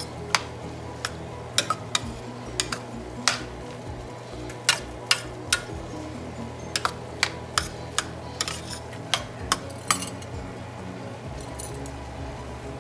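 Slotted spoon clinking against a stainless steel skillet while cabbage and mixed vegetables are stirred: sharp, irregular clinks every half second or so, thinning out in the last few seconds.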